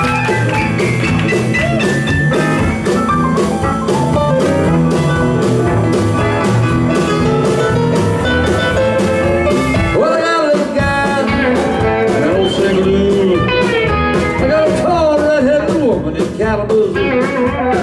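Live country-rock band playing an instrumental break between verses: a lead line of bending, sliding notes over a steady drum beat and bass.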